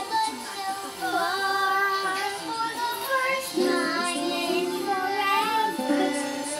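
A young girl singing a melody in a child's voice, her notes sliding up and down.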